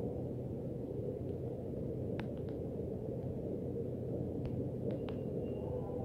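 Steady low background rumble with a few faint, scattered ticks and a brief faint high tone near the end.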